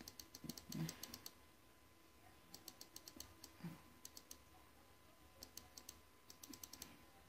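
Faint, rapid computer mouse clicks in several short bursts, clicking a number spinner up and down. There is a soft low thump about a second in.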